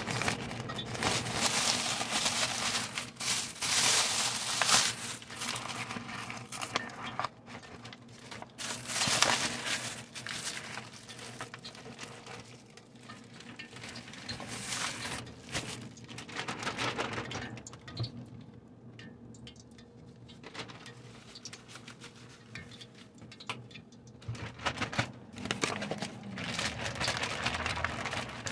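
Plastic zip-top bag crinkling and rustling as it is handled and shaken with flour and chicken pieces inside, in irregular bursts. It is loudest in the first few seconds and again about nine seconds in, and quieter for a stretch past the middle.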